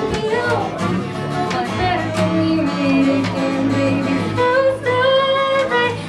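Music: a song with a singing voice over guitar and a steady beat.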